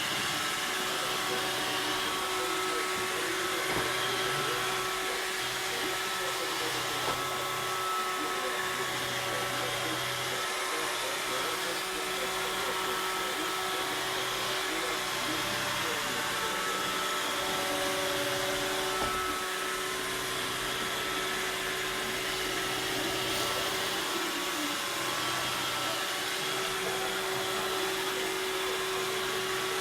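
iRobot Roomba robot vacuum cleaner running steadily: an even whir of its suction fan and brushes, with a steady hum through it.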